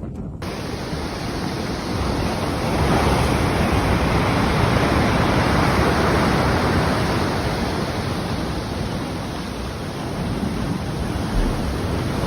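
Loud, steady rushing storm noise that swells over the first few seconds and eases slightly near the end.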